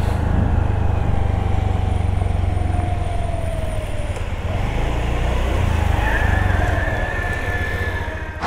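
Honda Activa 125 scooter's single-cylinder engine running under way, mixed with a low wind rumble. A call to prayer sounds faintly in the distance, its sung notes sliding down a few seconds in.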